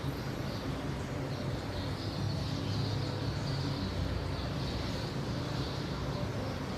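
Steady background rumble and hiss with a low hum, like distant traffic or machinery ambience.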